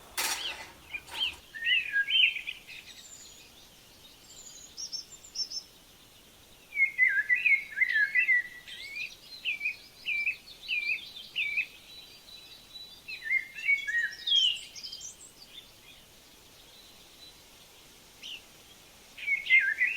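A songbird singing in several bouts of quick, repeated chirping notes, with pauses between the bouts. A sharp knock sounds right at the start.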